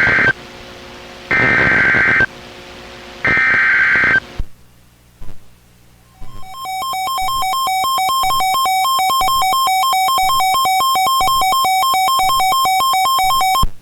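Emergency Alert System SAME header on NOAA Weather Radio: three shrill digital data bursts, each about a second long with a second's pause between them. After a short gap comes a steady electronic alert tone, about seven seconds long, which cuts off suddenly near the end. Together these announce an incoming warning.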